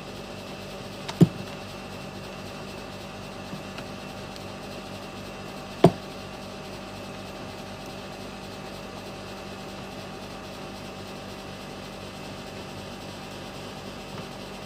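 Two sharp knocks, about a second in and again near six seconds, from an electrolytic capacitor being handled and set down on a cutting mat, over a steady background hum.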